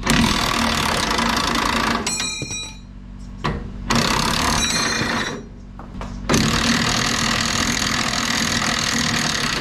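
Cordless impact wrench hammering on a tight, rusted cab-mount bolt in three bursts: about two seconds, then a shorter one, then a longer run of about three seconds.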